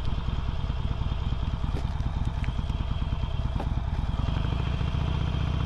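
Harley-Davidson Sportster's V-twin engine running under the rider, with an uneven, choppy beat through a turn. About four seconds in it settles into a steadier, even note.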